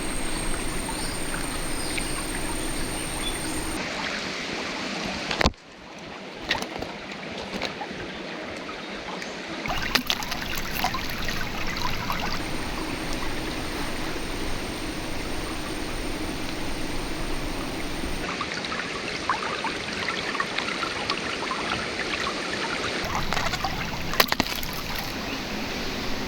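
Shallow river water running steadily over stones, with scattered small clicks and knocks; a sharper knock comes about five seconds in.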